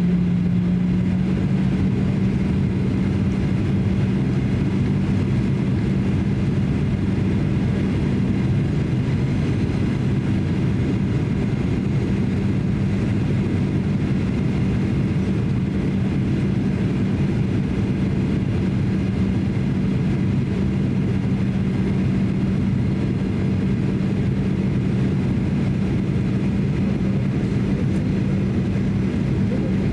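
Cabin noise inside a Boeing 737-800 in flight: the steady low rumble of its CFM56-7B engines and airflow, with a constant low hum running through it.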